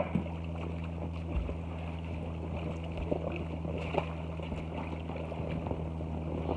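A steady low hum, with faint water sloshing and small splashes from the pool.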